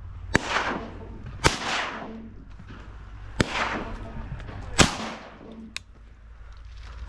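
Duck hunters' shotguns firing four times, a second or two apart. Each is a sharp report trailing off in a short echo. The loudest comes about two-thirds of the way in.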